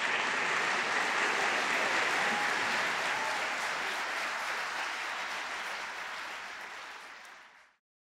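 Audience applauding: a steady wash of many hands clapping that slowly fades away and stops shortly before the end.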